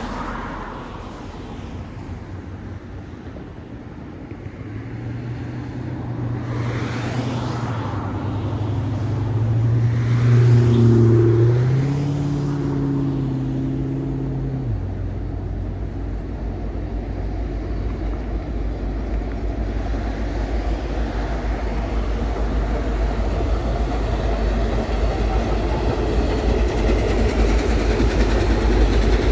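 An approaching train sounds a long, low chord of several notes that cuts off abruptly about halfway through. Then the low rumble of locomotives and wheels grows steadily louder as the diesel units roll onto the trestle.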